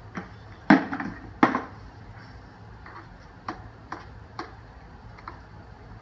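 Two sharp knocks less than a second apart near the start, then lighter taps and clicks of a drywall knife against a metal mud pan as hot mud (setting-type joint compound) is stirred.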